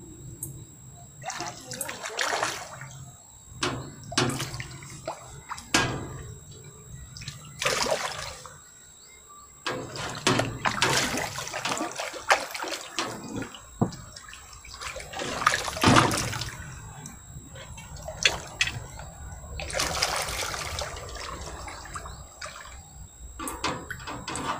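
A hooked Israeli carp (a mirror carp) thrashing at the surface while being played on the line. It splashes the water again and again in irregular bursts, the longest and loudest around the middle.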